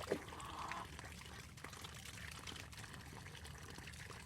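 Steady trickling of running water, with faint small ticks. Just after the start comes one short sound that falls in pitch, the loudest moment.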